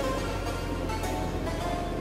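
Background music: a trap beat with heavy bass under short repeated keyboard-like notes.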